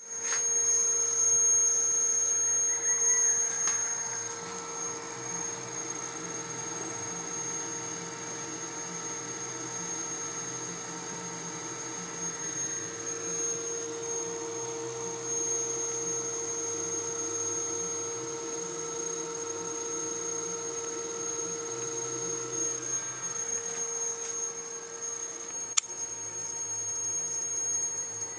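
Power inverter running under load: a steady electrical hum with a constant high-pitched whine, louder for the first few seconds. A single sharp click sounds near the end.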